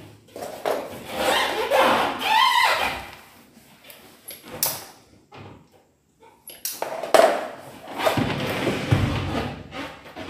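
A glass pane being shifted and seated in an aluminium window frame with suction-cup lifters: irregular knocks, thuds and scraping, with a brief wavering squeak about two and a half seconds in.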